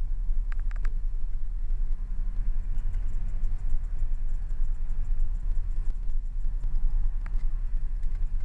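Car engine running with a steady low rumble, heard from inside the cabin, with a few short clicks just under a second in and again about seven seconds in.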